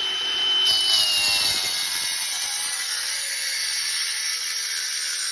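Power saw cutting through a clay (terracotta) sewer pipe: a high whine that drops in pitch about a second and a half in as the blade bites into the clay, then steady noisy grinding.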